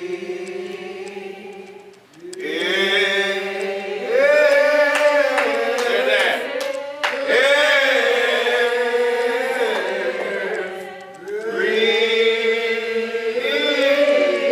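Congregation singing a slow hymn without instruments, several voices together holding long, drawn-out notes, with a short break about two seconds in and another near the eleven-second mark.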